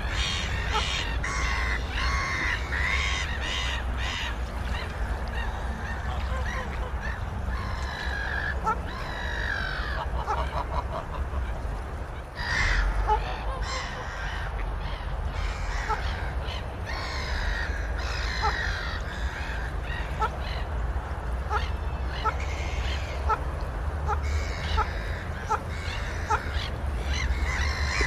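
Waterfowl calling again and again, with many short sharp ticks and a steady low rumble underneath.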